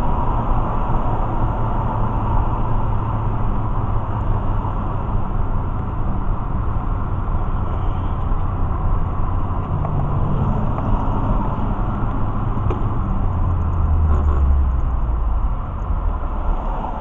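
Steady road and engine noise heard from inside a moving car in highway traffic, with a deeper low rumble swelling about fourteen seconds in.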